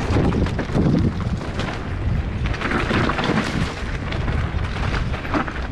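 Mountain bike ridden fast down a dirt jump trail: wind buffeting the microphone as a steady low rumble, with many small knocks and rattles of the tyres and bike over the rough ground.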